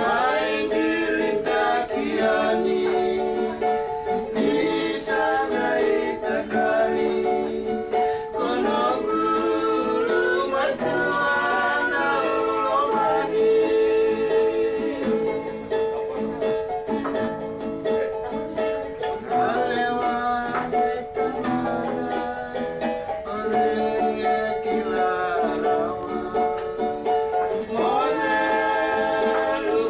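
Acoustic guitar and ukulele strummed together, with voices singing along.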